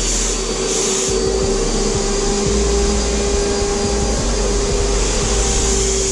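Titan Capspray HVLP turbine running steadily with a constant whine, feeding air through the hose to the spray gun. The gun's air hiss grows louder for about the first second and again near the end, as the spray gun is triggered.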